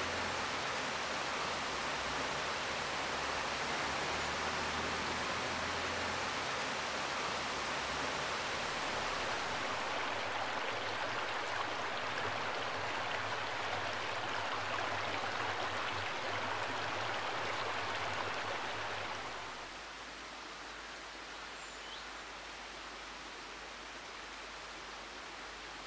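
River water rushing over rocks, a steady noise; it turns quieter and thinner about two-thirds of the way through.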